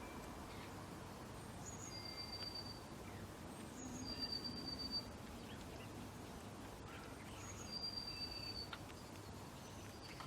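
Small songbirds calling: three thin, high, level whistles, each just under a second long and each led by a short higher note, over a faint steady outdoor hiss.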